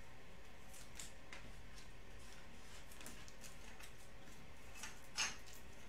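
Faint crinkling and crackling of a foil trading card pack wrapper being handled and torn open, with a louder short rustle about five seconds in.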